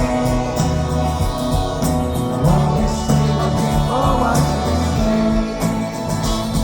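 Rock band playing live on a concert sound system, with sustained chords and a sung vocal line.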